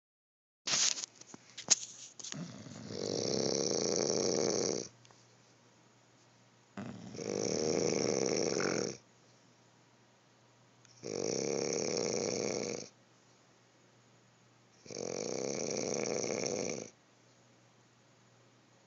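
Snoring: four long snores, each about two seconds, coming about every four seconds. A few sharp clicks and knocks come just before the first snore.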